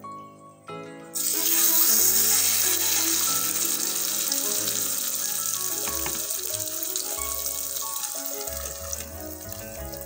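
Shredded-potato and egg omelette landing in hot oil in a cast iron skillet and sizzling loudly, starting suddenly about a second in and slowly dying down.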